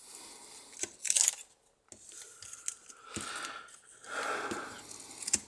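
Blue painter's tape being peeled off a circuit board and crumpled, with a few light clicks from the board being handled. A short sharp hiss comes about a second in, and two longer rasping stretches near three and four seconds in.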